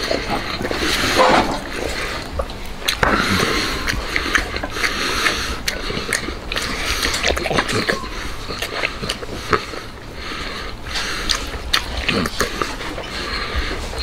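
A man biting and chewing tender braised ostrich-leg meat, close to the microphone: a continuous run of wet chewing sounds, lip smacks and small clicks, with breaths in between.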